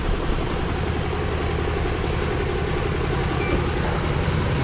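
A large engine idling steadily, a continuous low hum.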